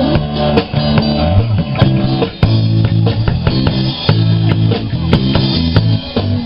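Live rock band playing: electric guitar, bass and drum kit with a steady beat.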